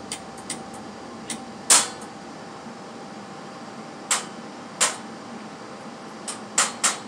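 Wire-feed welder's arc striking in short crackling pops, about ten separate bursts with gaps between them, the loudest a little under two seconds in: the arc keeps catching and breaking instead of running a steady bead. A steady low hum runs underneath.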